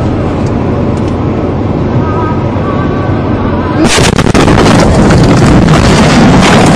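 Steady road and engine noise inside a car travelling at about 86 km/h. About four seconds in, a sudden, much louder rough crashing and crackling noise sets in and keeps going as the car crashes.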